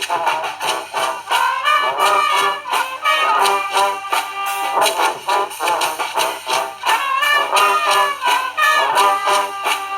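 Brass band playing: trumpets and trombones carry a melody over a steady drumbeat.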